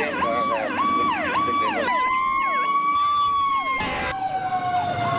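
Fire-engine siren: a repeating falling yelp about twice a second, joined about two seconds in by a long, steady horn-like tone, several siren sounds overlapping.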